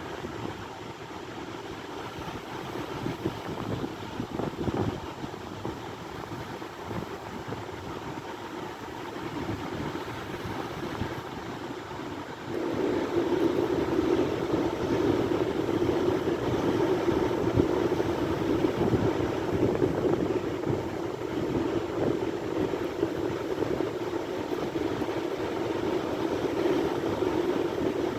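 Sea waves breaking and washing in a continuous rush, with wind on the microphone; the noise grows suddenly louder about halfway through.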